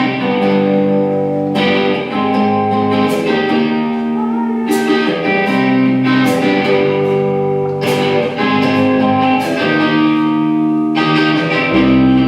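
Electric guitar played through a Marshall amplifier for a sound check, strumming chords and letting each ring for a few seconds before the next.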